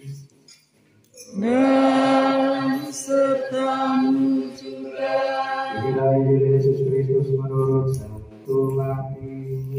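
Chanted liturgical dialogue: after a short pause, a sung response in a higher register with long held notes, then a man's lower voice chanting through a microphone in two phrases.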